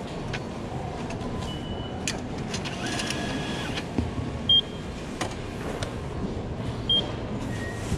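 A station ticket machine's touchscreen gives two short, high beeps, about two and a half seconds apart, as its charge buttons are pressed, over a steady station background hum. A fainter two-tone chime sounds a little before the first beep, along with a few light clicks.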